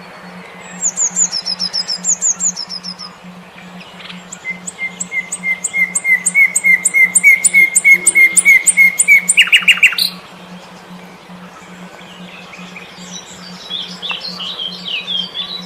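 Songbird song played as an audio-therapy track: fast trills of repeated high notes, a long run of evenly repeated notes that ends about ten seconds in, then softer varied twittering near the end. Under it runs a steady, evenly pulsing low tone, the brainwave-stimulation tone meant to get stressed birds singing again.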